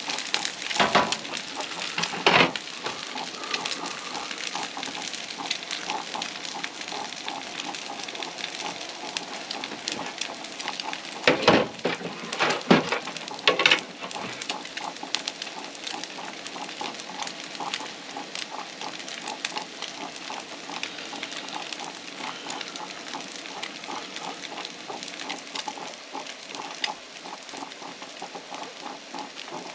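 Food sizzling in a frying pan on a propane camp stove: a steady crackling hiss. A few sharp knocks of cookware being handled come near the start and in a cluster about a dozen seconds in.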